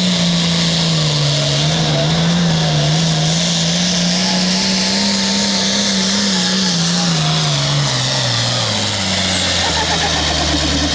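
Turbocharged International diesel pulling tractor running flat out under load, its engine note wavering as it drags the sled. About seven seconds in the pitch drops steadily and settles low as the engine is pulled down and the tractor comes to a stop at the end of its pull.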